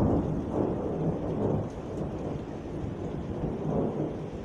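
Rolling thunder rumbling and slowly dying away, with rain falling.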